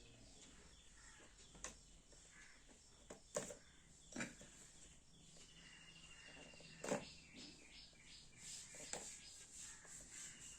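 Quiet handling noise from opening a smartphone's retail box: scattered sharp clicks and taps, a few of them louder, with a faint high trill in the background.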